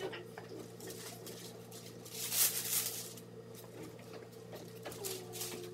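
Rustling and handling noise with a few light knocks, loudest about two to three seconds in, over a steady low hum.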